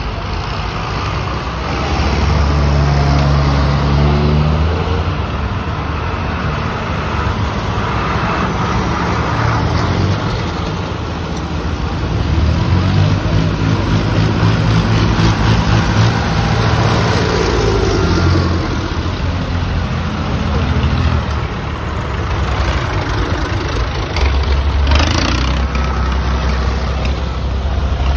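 Diesel tractor engines driving past one after another in a procession, each engine note swelling as it nears and fading as it goes by, with crowd chatter underneath.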